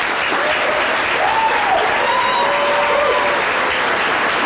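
Audience applauding steadily after a speech, with a few pitched voices heard over the clapping in the middle.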